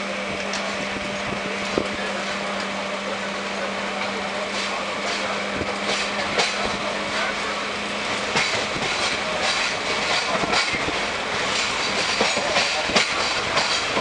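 Train running, heard from a carriage window: steady running noise with a low hum that stops about eight seconds in, and the wheels clacking over the rails, more and more often in the second half.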